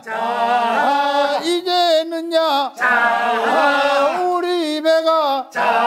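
Men's voices chanting a Korean fishermen's boat-launching work song, unaccompanied: two long sung phrases with pitch sliding up and down, broken by a short breath about halfway.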